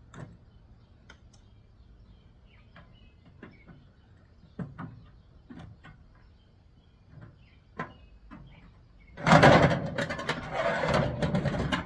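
Hand tools and sheet-metal parts of a microwave oven being dismantled: scattered light clicks and taps, then about nine seconds in a loud burst of metal rattling and scraping as parts are wrenched and pulled loose.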